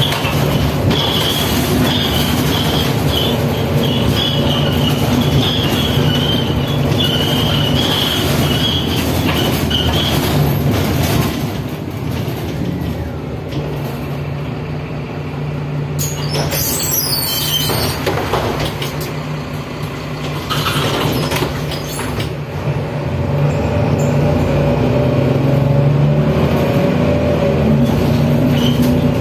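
Ride inside a Mercedes-Benz Citaro diesel city bus: the engine's steady drone under a haze of road noise, with a high whine over the first third. It eases off and gets quieter for a stretch in the middle, then climbs in pitch again as the bus pulls away near the end.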